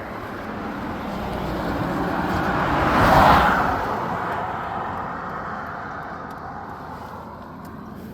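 GS1300 motorcycle with a double shotgun exhaust passing by: its engine and exhaust sound builds, peaks about three seconds in, then fades away.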